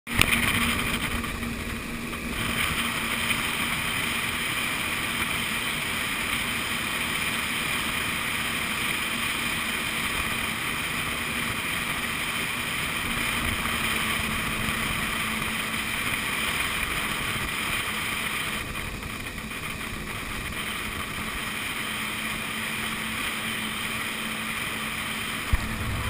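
Personal watercraft running steadily across open water, heard from on board: a constant engine hum under a steady rush of water and wind.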